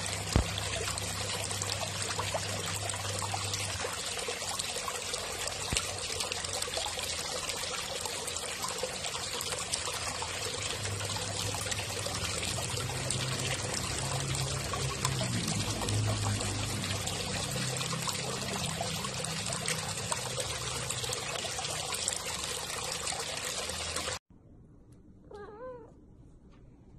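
A mass of koi thrashing at the water's surface, with dense, steady splashing that stops suddenly. About a second later a cat gives one short meow.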